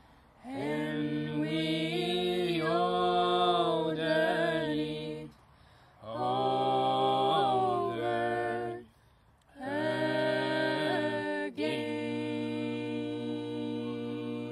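Voices singing an Irish folk song unaccompanied: sung phrases broken by two short breaths, then a long held note from about twelve seconds in.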